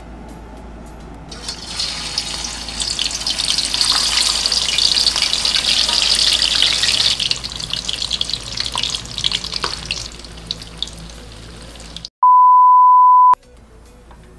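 Blocks of tofu sizzling and crackling in hot cooking oil in an aluminium wok. The sizzle swells about a second in and eases off after the middle. Near the end it cuts out for a steady high beep lasting about a second.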